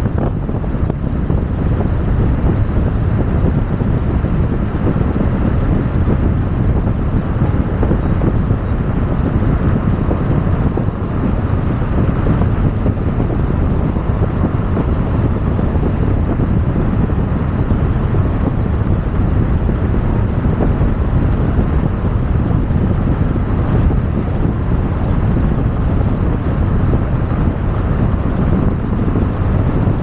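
Car driving along an asphalt road: a steady rush of tyre and wind noise, with wind buffeting the microphone.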